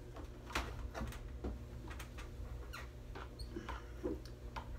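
Damp cloth rubbing over a microwave's glass door and stainless steel front, giving a string of short, irregular squeaks.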